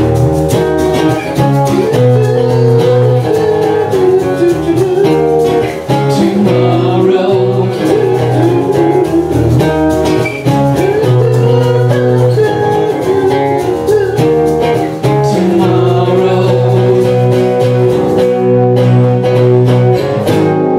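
Acoustic guitars strummed in chords with a man singing the lead vocal, played live by a small acoustic band.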